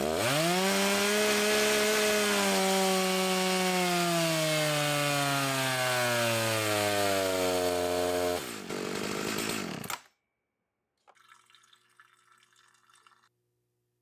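Makita DCS7901 two-stroke chainsaw on a dynamometer: it revs up to full throttle at once, then is pulled down under the dyno's load, its pitch falling steadily for about eight seconds. It then drops to a lower note and cuts off about ten seconds in.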